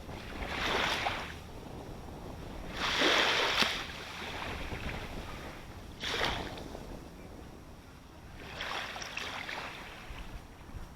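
Ocean waves breaking and washing up close by, over a steady low surf rumble. Four surges of hissing wash come a few seconds apart; the second, about three seconds in, is the loudest.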